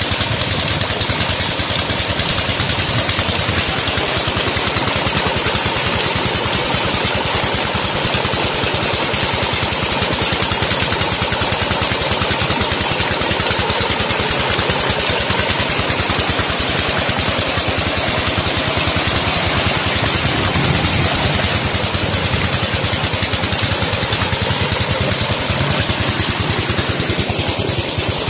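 Old Petter-type diesel engine running steadily as it drives a tube-well pump, its rapid firing strokes mixed with the rush of water gushing from the outlet pipe into the tank.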